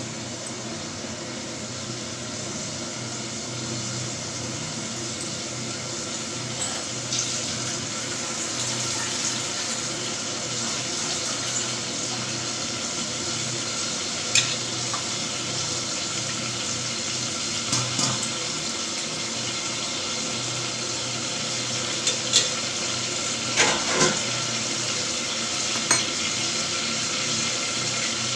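Potatoes, capsicum and onion-tomato masala sizzling steadily as they fry in an open pressure cooker, with a few sharp clinks of a spoon against the pot.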